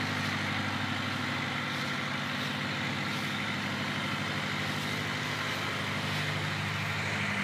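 Deutz tractor's diesel engine idling steadily.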